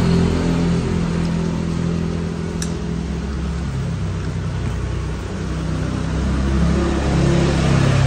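An engine running steadily, its note shifting lower a few seconds in and rising again near the end.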